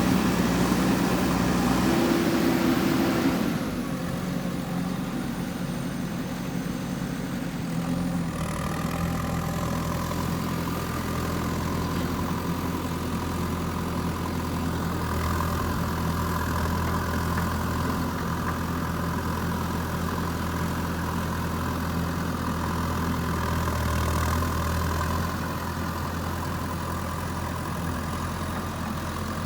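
Diesel engine of a JCB 3DX backhoe loader running. It is louder at first, drops about three and a half seconds in, changes its note again around eight seconds in, then runs steadily.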